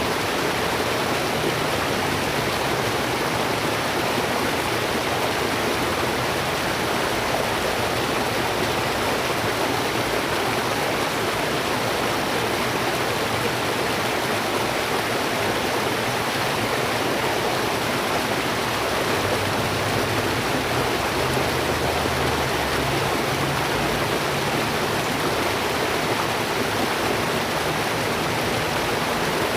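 Steady rushing of flowing water, like a stream or river, with no breaks.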